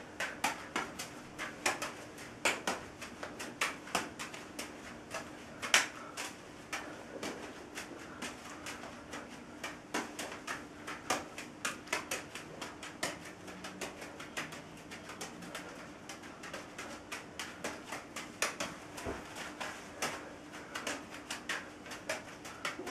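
Small beanbag juggling balls slapping into the hands as they are caught and thrown in a three-ball Mills mess, a few soft smacks a second in an uneven run. A faint steady hum sits underneath.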